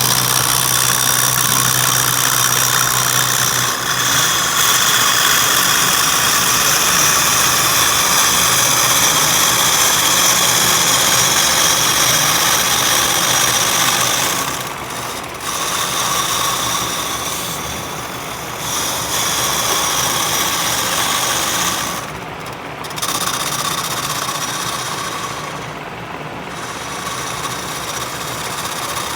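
Steady machine noise, a motor running with a high whine, easing off briefly a few times in the second half.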